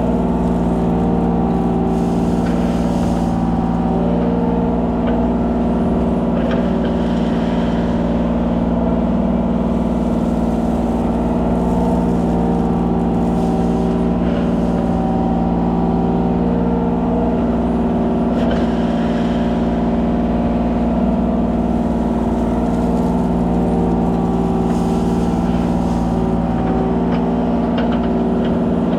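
Kubota 33 mini excavator's diesel engine running steadily at a constant pitch.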